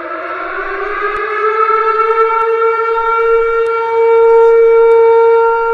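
Civil defense warning siren winding up in pitch and settling into a steady wail, loudest around four to five seconds in.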